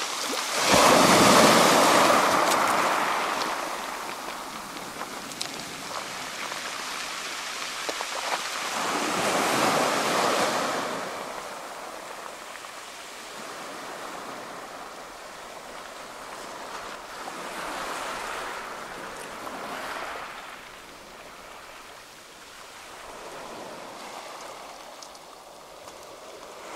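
Small waves washing up a pebble beach, the surf rushing over and through the stones in swells every few seconds. The biggest wash comes about a second in and another around ten seconds in, with smaller ones after.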